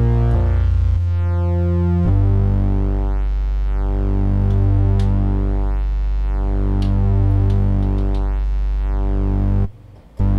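Kurzweil PC3 synthesizer playing a pulse-width-modulation pad patch with a sine wave an octave below, through a single-pole low-pass filter. Chords change a few times in the first two seconds, then one chord is held with a slowly sweeping, gently swelling tone. The sound cuts out briefly near the end before another chord starts.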